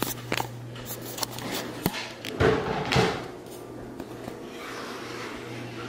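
A few sharp knocks and clunks indoors, then a louder cluster of bumps about two and a half to three seconds in, over a steady low hum.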